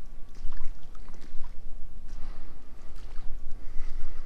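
Wind buffeting the microphone: a steady low rumble that swells and dips, with a few faint short clicks above it.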